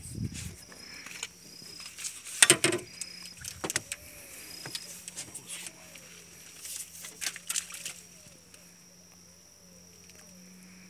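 Water hyacinth leaves rustling in a few short bursts, loudest about two and a half seconds in, over a faint steady hum.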